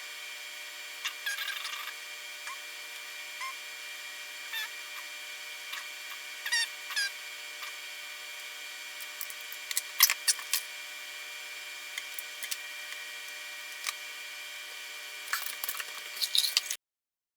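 Scattered light clicks, taps and small scrapes of a circuit board and its parts being handled, the sharpest cluster about ten seconds in, over a steady faint hiss.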